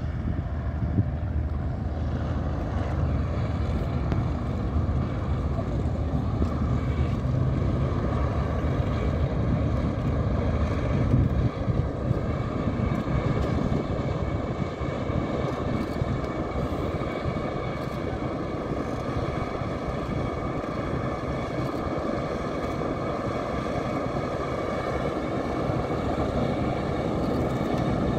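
Grumman F8F-2P Bearcat's Pratt & Whitney R-2800 radial engine running at taxi power, a steady low rumble with its propeller turning.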